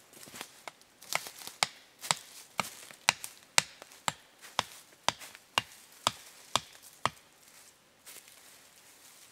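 A hand tool striking repeatedly in a steady series of sharp chopping knocks, about two a second, starting about a second in and stopping about seven seconds in.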